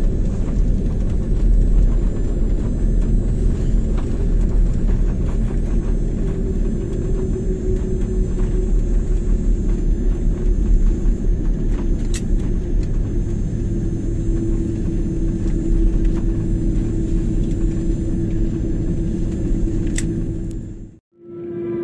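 Cabin noise of a jet airliner taxiing after landing: a steady low rumble of engines and rolling wheels, with a steady hum that grows stronger about halfway through. The sound cuts off abruptly near the end.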